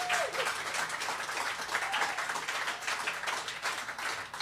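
A small audience clapping and applauding, a dense patter of many hands. The last note of the song dies away in the first moment.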